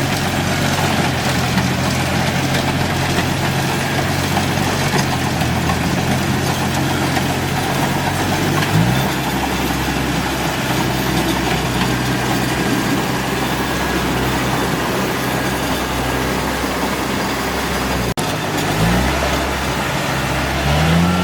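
Kubota DC-70G PRO rice combine harvester's diesel engine running steadily, with short rises in engine pitch about nine seconds in and twice near the end as the load or throttle changes.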